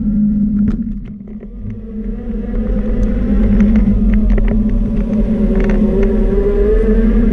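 Steady low hum and rumble of a ride-on vehicle moving along a pavement, with a motor whine that rises in pitch over the second half as it picks up speed. Scattered knocks and rattles come from bumps, and the sound drops briefly about a second in.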